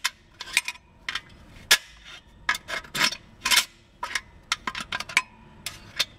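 A string of irregular sharp metallic clinks from the reverse clutch pack and its snap ring as they are worked into place by hand inside a Ford E4OD automatic transmission case, the snap ring locking the pack.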